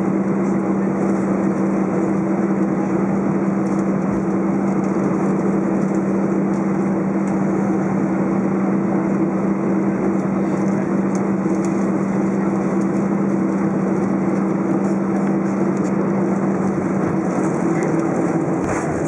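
Cabin noise of an Airbus A319 taxiing: steady jet engine hum at low power, with two constant low tones over a broad rushing noise.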